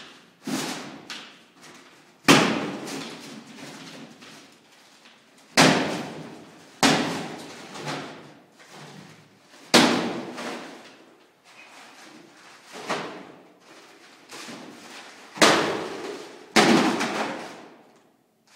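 A wall being broken open: about eight heavy, irregularly spaced blows, each followed by a second or so of crumbling, crackling debris falling.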